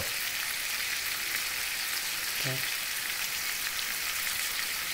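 Chicken thighs and legs frying skin-side down in cooking oil with garlic and ginger in a pan, giving a steady sizzle as they brown.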